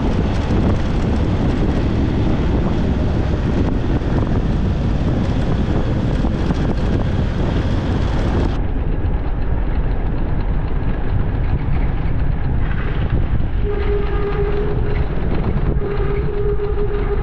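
Motorcycle riding along a gravel road, its engine and the wind making a loud, steady rush on the microphone. The sound turns duller about halfway through, and a steady droning tone joins it for the last few seconds.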